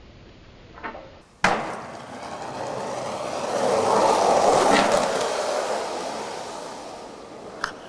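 Skateboard tricks and riding: a light clack under a second in, then a sharp, loud clack of the board hitting about a second and a half in. The wheels then roll on rough pavement, growing louder and fading away, with one more click near the end.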